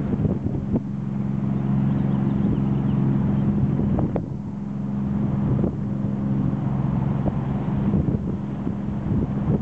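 A boat engine running at a steady pitch, with wind on the microphone and a few light knocks.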